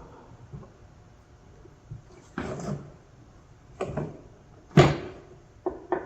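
A few hollow knocks and clunks of a hard plastic air box being handled and set down, with the loudest about five seconds in.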